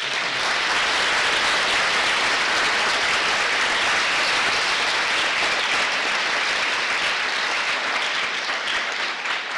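An audience gives a round of applause: steady clapping that starts at once and thins out near the end.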